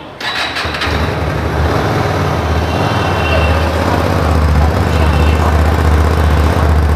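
Hyosung GT250R's 250 cc V-twin starting up through its stock exhaust and then idling steadily.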